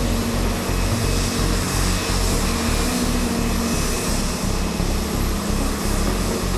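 Boeing 767-300 jet airliner rolling out after landing, its engines running at low power: a steady rumble and hiss.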